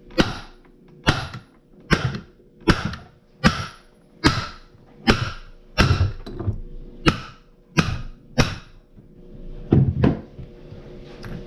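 A 4-pound sledgehammer striking a nut on the end of a Kawasaki KX65 crankshaft, driving the crank out of the split crankcase. About a dozen sharp metal blows fall a little under a second apart, then there is a pause and one last blow about ten seconds in.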